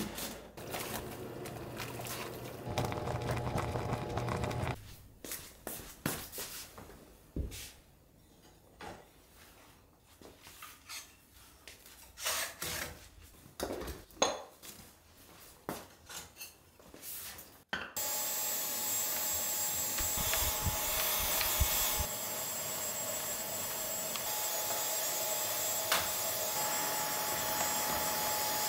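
Dyson Digital Slim cordless stick vacuum running steadily with a high whine, its crevice tool working over a wooden shelf; it starts about two-thirds of the way in. Before it come a few seconds of steady hum, then scattered light knocks and taps.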